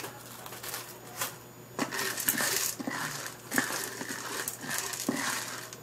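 Hard, unpopped popcorn kernels clicking and rattling against a nonstick pot as a hand spreads them through the oil: a scatter of separate light clicks at uneven intervals.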